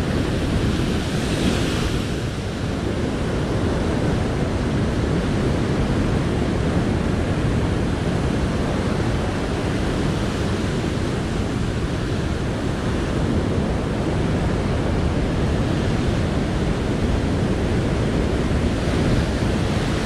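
Big ocean waves breaking and crashing onto a rock ledge, with white water washing steadily across the rock.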